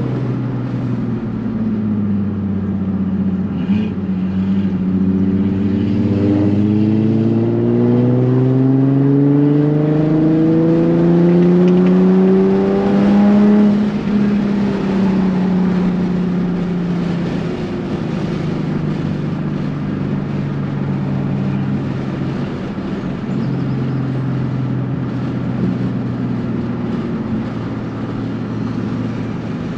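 Sports car engine accelerating hard, its pitch climbing smoothly for about ten seconds. It then drops back and runs at a steadier, lower pitch.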